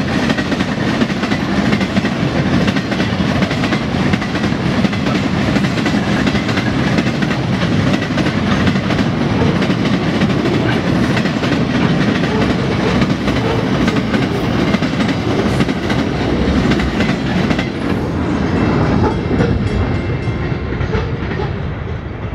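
Freight train wagons rolling past close by: a steady rumble of steel wheels on rail with a clickety-clack over the rail joints. It eases off slightly near the end as the last wagons go by.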